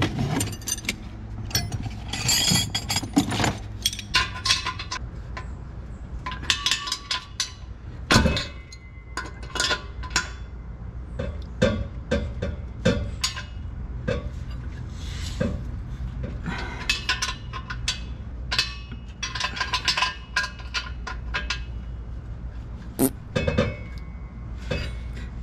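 Steel wrenches clinking against the nuts and bolts of a Miata's rear exhaust pipe joint as they are checked and tightened: a run of irregular sharp metallic clinks over a steady low hum.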